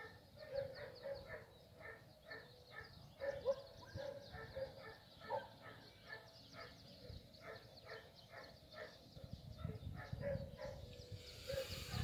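An animal calling over and over in a quick regular rhythm, about three calls a second, with a low rumble rising near the end.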